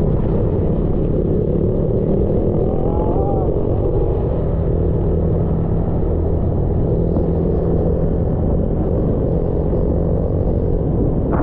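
Motorbike engine running steadily while riding along a road, with wind rumbling on the microphone.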